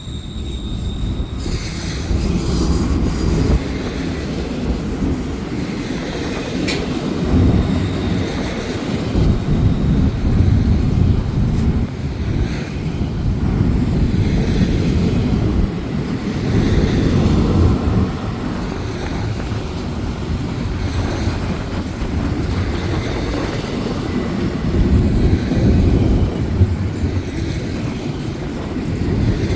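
BNSF intermodal freight train rolling past: a continuous rumble and rattle of wheels and cars on the rails that swells and eases. A high wheel squeal cuts off about a second in.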